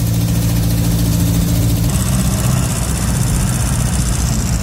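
Triumph Renown's four-cylinder engine running on the move, heard from inside the cabin, much quieter now that the broken exhaust section has been replaced and it no longer blows. About two seconds in the sound changes to a rougher mix of engine and road noise with a faint high whine.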